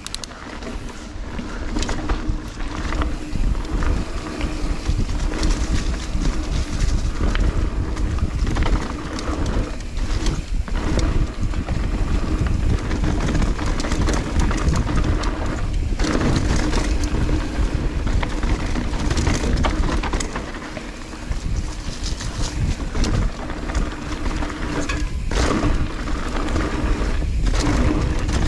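Transition mountain bike descending rough dirt singletrack at speed: wind buffeting the GoPro microphone, tyres rolling over dirt, roots and leaves, and the bike clattering over bumps.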